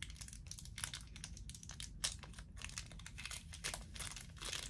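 Quiet, irregular crinkling and crackling of a small packet, the packaging of a cheap ring, as it is handled and opened.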